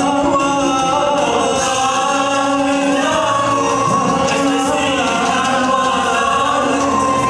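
Nasyid vocal group singing in harmony, several voices holding and moving between notes.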